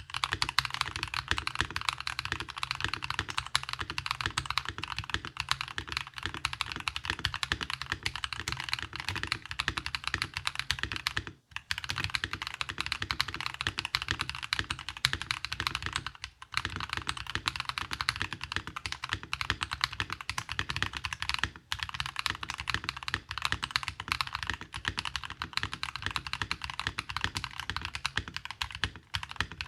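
Fast, continuous typing on a custom 65% mechanical keyboard: a Novelkeys NK65 Entry Edition, top-mounted, with lubed Akko CS Rose Red linear switches on a foam-lined POM plate and PBT keycaps. The typing stops briefly about eleven and a half seconds in and again around sixteen seconds.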